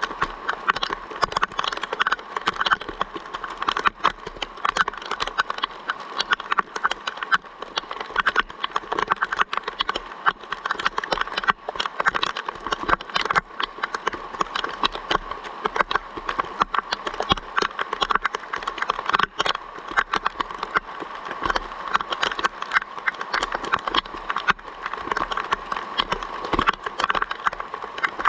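Rain falling, with a dense, irregular stream of drops tapping close to the microphone and keeping up steadily throughout.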